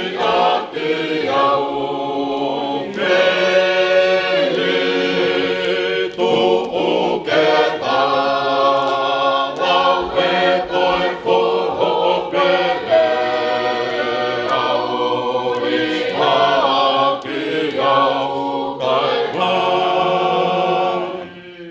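Tongan church choir singing a hymn unaccompanied, several voices in parts holding and moving through long notes together.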